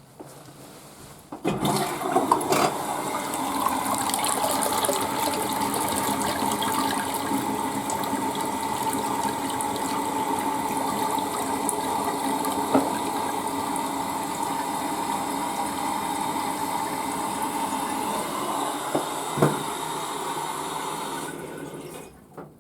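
Public restroom toilet flushing: a sudden rush of water about a second and a half in, then steady running water with a steady whining tone for about twenty seconds, which fades out shortly before the end.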